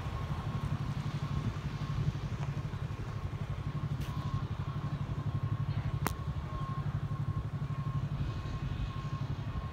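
An engine idling steadily with a fast, even low pulse, and a faint steady whine above it. There is a single sharp click about six seconds in.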